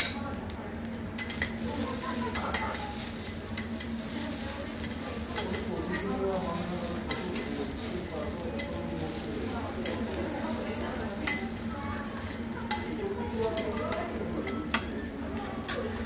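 Food sizzling on a steel teppanyaki griddle while the chef's metal spatulas stir, scrape and tap on the plate, with sharp clicks every second or two.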